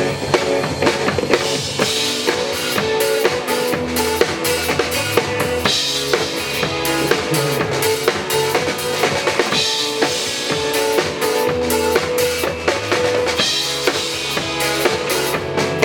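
Live pop band playing an instrumental passage: a drum kit with kick drum, snare and rimshots keeping a steady beat over sustained chords.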